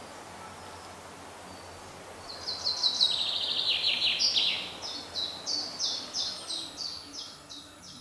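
A small songbird singing: from about two seconds in, a loud, fast trill of high notes that drops in pitch, then a run of repeated high notes, about three a second, fading away.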